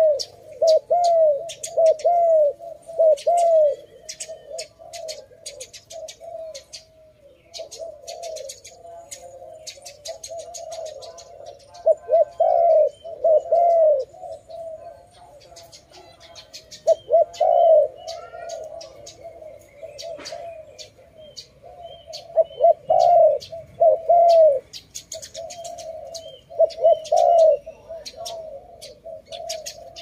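Spotted dove cooing: several bursts of rolling, arched coos with pauses between them, the bursts coming at the start, around the middle and toward the end. Short sharp chirps of small birds run over them throughout.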